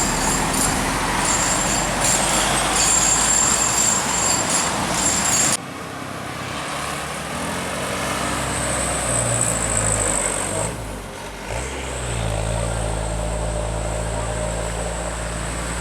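Road traffic noise, cut off abruptly about five and a half seconds in, then a large diesel tour-bus engine running steadily with a low hum.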